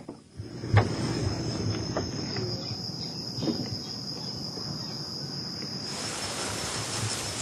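Insects trilling steadily in one high, even tone, with a few sharp knocks; a broader hiss joins about six seconds in.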